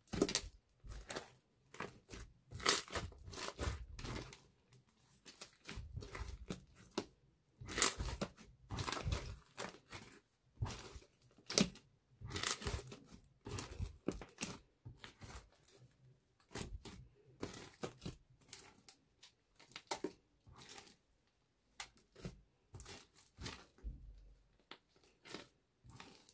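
Thick brown slime being kneaded, folded and stretched by hand, giving sticky pops and clicks in irregular clusters with short gaps between.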